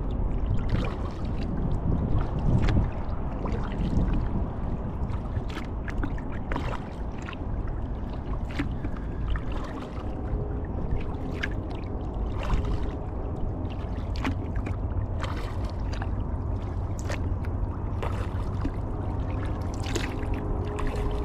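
Kayak being paddled on calm water: irregular small splashes and drips from the paddle blades, with gurgling water over a steady low rumble.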